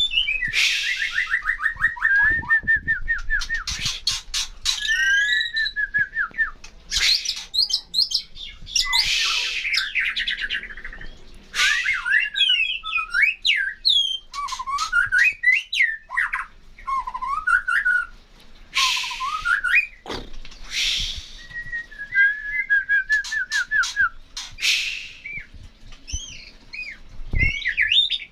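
A songbird singing in full, continuous song (gacor). The song mixes rapid trills with sliding whistled phrases and harsh, buzzy bursts, with only brief pauses.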